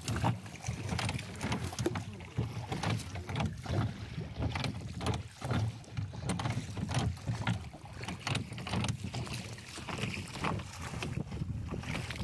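Small rowboat being rowed with a single wooden oar: repeated knocks and clicks of the oar working in its metal oarlock ring and against the hull, with the oar's strokes in the water. Wind rumbles on the microphone throughout.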